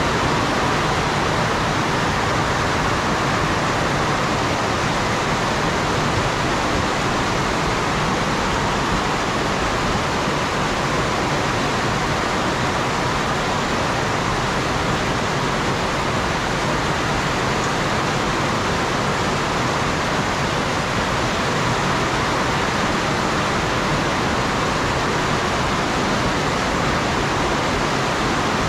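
Heavy rain falling in a steady, even rush, with runoff pouring off the roof edge in a stream. No thunder claps.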